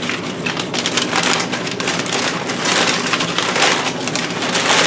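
Crumpled brown kraft packing paper rustling and crackling as hands dig it out of an open cardboard box, a dense continuous crinkle with louder handfuls about three seconds in and near the end.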